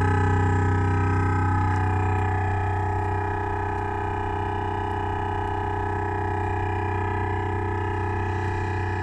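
Bose speakers of a 2015 Renault Grand Scenic giving out a loud, steady buzzing drone like a drill, with the engine and the sound system switched off. It is the sign of a fault in the R-Link multimedia and navigation unit, which was cured by reprogramming the navigation system.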